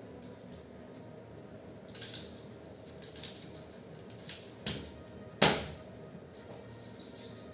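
Irregular knocks and clinks of metal scroll-compressor parts being handled, with a sharp knock about four and a half seconds in and the loudest about five and a half seconds in.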